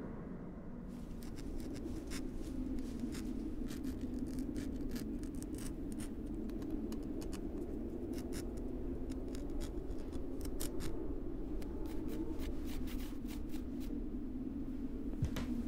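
Irregular light clicks and scratches over a steady low hum.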